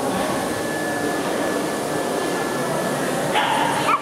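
Steady hum of a crowded hall, with a faint high whine running through it and indistinct chatter beneath; a short, louder sound with a wavering pitch comes near the end.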